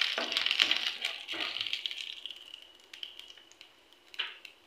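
Chana dal and urad dal frying in hot oil in a nonstick pan, stirred with a spatula at first. The sizzle dies away over the first two seconds, leaving scattered light crackles, and a short burst of sizzling comes near the end.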